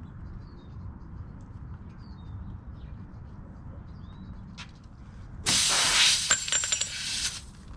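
Air hissing out of a puncture in a tubeless tire, starting suddenly about five seconds in and lasting about two seconds, with a few clicks in it. The tire is losing air while the plug tool is worked in the hole.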